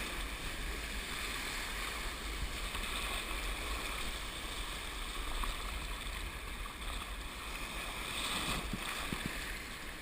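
Steady rush of sea water and surf with a low rumble, heard through a head-mounted GoPro's waterproof housing while kayaking, with a few faint knocks near the end.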